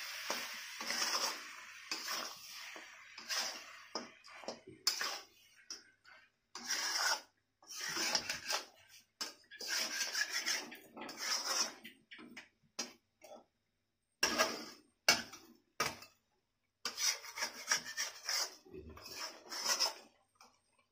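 Metal spatula stirring and scraping a thick chicken masala around a metal kadhai, a run of irregular scraping strokes with brief pauses. The spatula works along the bottom of the pan, where the dry masala starts to stick.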